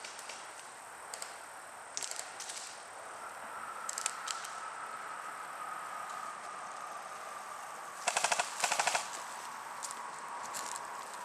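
Airsoft guns firing: a few scattered single shots, then two quick full-auto bursts of rapid clicks about eight seconds in.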